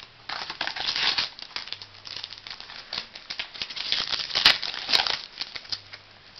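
Foil trading-card pack being torn open and crinkled by hand: a run of crackling rustles, with a couple of sharp clicks about four and a half and five seconds in.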